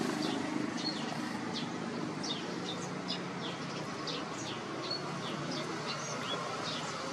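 Birds chirping: many short, high, quickly falling calls in a busy chorus, over a steady low rumble.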